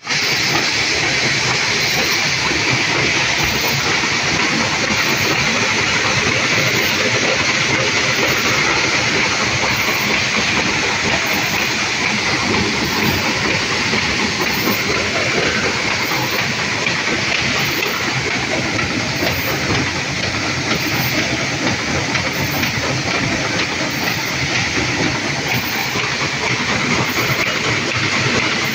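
Paper boat-tray forming machine running at production speed, about 130 sheets a minute: a loud, steady, dense machine noise from its feeder, belts and rollers.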